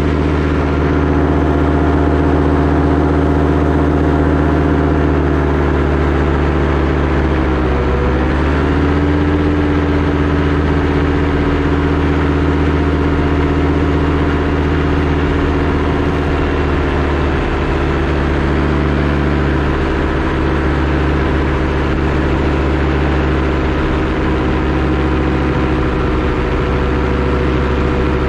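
Paramotor engine and propeller running steadily under power in flight. The pitch dips briefly about eight seconds in and then comes back up, as the throttle is eased off and reopened.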